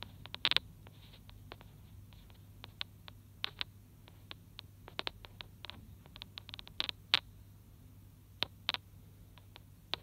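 Great spotted woodpecker pecking at a fat ball in a wire-cage feeder: irregular sharp taps and clicks, some in quick pairs, over a faint low hum.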